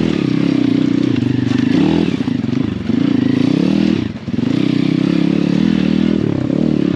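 Pit bike's small single-cylinder engine pulling hard uphill over rocks, the throttle held open with brief dips in revs about two seconds in and a sharp chop of the throttle about four seconds in before it picks up again. Stones clatter under the tyres.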